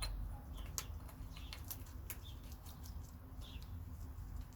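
Scattered small clicks and taps, like light handling of a small object, over a low steady hum, with a few faint short high chirps, like birds, in the background.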